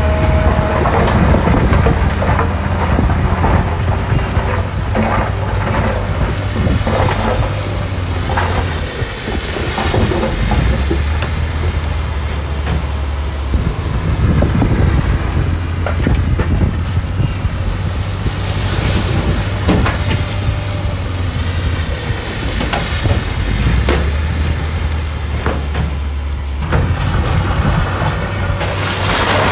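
Heavy earthmoving machinery running with a low, steady engine drone that eases off twice, over continuous clattering and crunching of stone and gravel.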